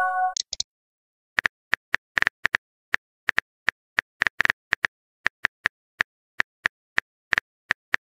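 Phone-keyboard typing clicks, as a texting-story app plays them: a long run of short, sharp taps at an irregular pace of a few a second. They follow a brief multi-tone chime at the very start as a new message pops up.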